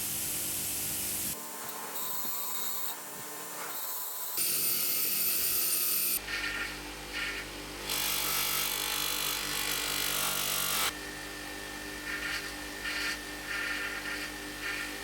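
Power-tool work on metal in short spliced clips: a motor runs with a steady whine and grinding noise, and the sound cuts off and changes abruptly several times.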